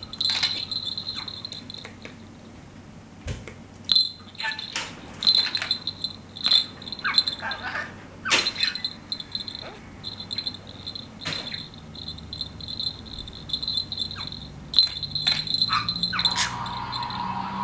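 Budgerigar pecking and biting at a hanging seed ball and small toy: irregular beak taps and clicks, with a small high ringing jingle coming and going.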